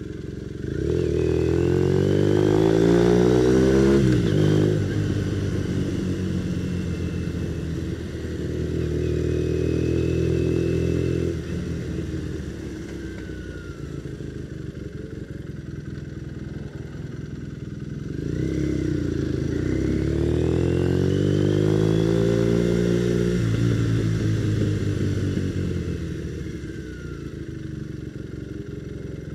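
Motorcycle engine accelerating in three pulls: one about a second in, a steadier one around eight seconds, and a rising one around eighteen seconds. Between the pulls it eases back to a low, steady run. It is heard through a microphone inside the rider's full-face helmet.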